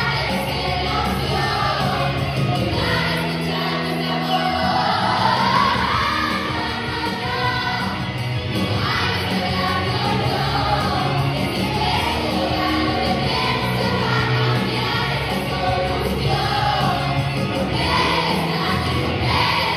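A song with sung vocals and held bass notes plays without a break, with several voices singing along.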